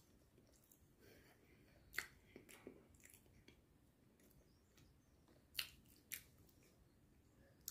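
Near silence with a few faint, short mouth clicks from chewing soft bread.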